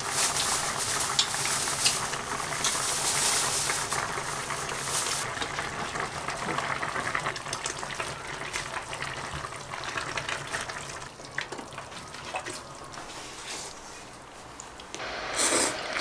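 Spicy soup boiling in a clay casserole pot, a dense bubbling that is louder in the first few seconds and slowly grows quieter.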